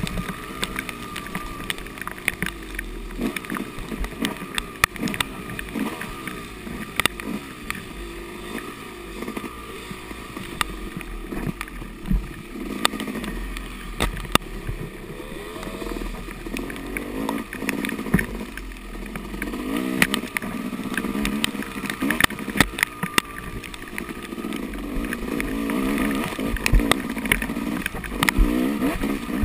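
Yamaha dirt bike engine revving up and down over and over as it is ridden hard, with frequent sharp knocks and clatter from the bike bouncing over rough ground.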